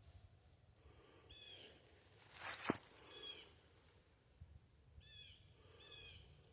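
Short chirping bird calls in small groups, about a second and a half in, around three seconds, and again near five and six seconds. A brief loud rustling whoosh ending in a sharp click comes about two and a half seconds in.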